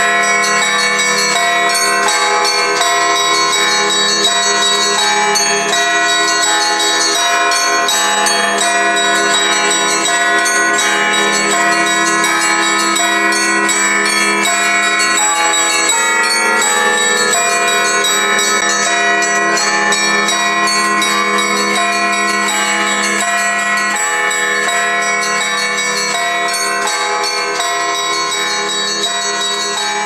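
Church bells ringing a festive Orthodox Easter peal: many bells struck in quick, overlapping succession, the ringing dense and unbroken, easing slightly in loudness near the end.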